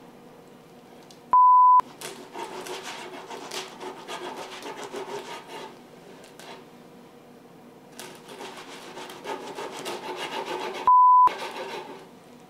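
A knife sawing back and forth through a broiled ciabatta loaf on a wooden cutting board, rasping in two bouts: one from about two seconds in and one from about eight seconds in. Two short, loud electronic beeps cut in, one just before the first bout and one near the end.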